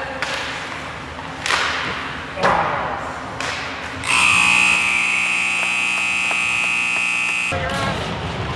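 Two sharp knocks, then an ice-hockey arena's scoreboard horn sounding one loud steady blast for about three and a half seconds before cutting off suddenly.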